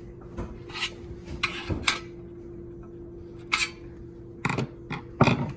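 Plastic clicks and clatter from a microwave control panel's parts being handled and its clips pried and snapped, about half a dozen sharp knocks, the loudest near the end. A steady faint hum runs underneath.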